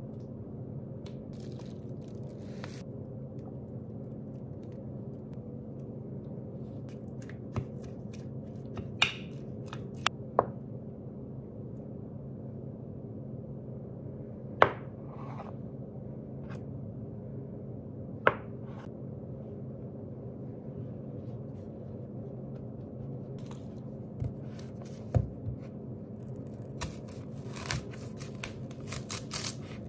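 Kitchen food prep: scattered single knocks and clicks of a knife and utensils on a cutting board over a steady low hum, turning into quicker chopping near the end.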